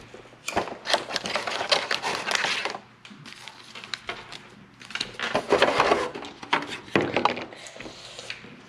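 Handling noise: foil Pokémon booster packs crinkling and a plastic box insert clicking and rattling as the packs are pulled out and moved, in three crackly bursts with quieter gaps between.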